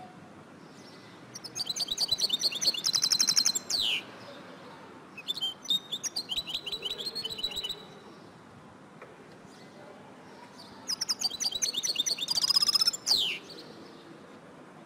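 Female European goldfinch calling: three bursts of rapid, high twittering chirps, the first and last each ending in a quick falling note.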